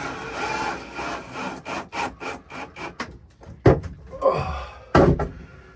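Screw being driven into a wooden 2x4 with a power driver, the motor whining with a rough grinding for about three seconds, then two sharp knocks.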